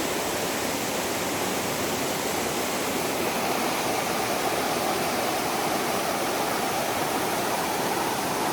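Steady rushing of a river flowing over rocks, an even noise with no breaks.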